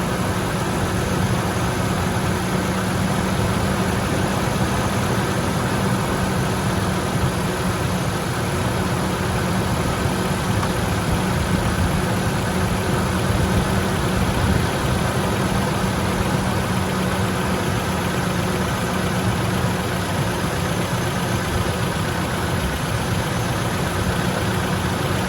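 1998 Ford F-150's 4.6-litre V8 idling steadily, with a tick that comes and goes: a valvetrain tick of the kind the owner hopes an engine flush will clear.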